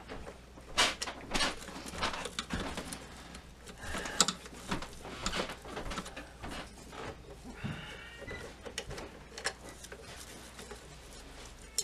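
Screwdriver working out the small screws that hold the dial light switch in the front panel of a Zenith B600 Trans-Oceanic radio: irregular scraping clicks and taps, with a short squeak about two-thirds of the way through.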